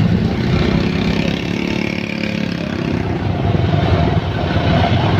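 Tour bus engine running as the bus moves past, a steady low rumble.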